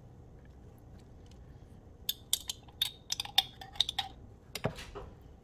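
Table knife clinking and scraping against the inside of a glass jam jar as jam is scooped out: a quick run of sharp, ringing clinks about two seconds in, then a duller knock near the end.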